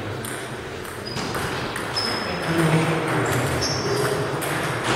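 Table tennis ball hit back and forth: a series of sharp clicks off bats and table, each with a short high ping, roughly a second apart.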